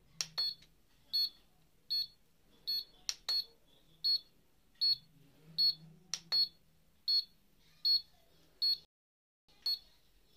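Handheld mini HIFU face-tightening device beeping at a steady pace, about four beeps every three seconds, while it fires a shot of pulses into the skin. A sharp click comes about every three seconds among the beeps, and the sound drops out for a moment near the end.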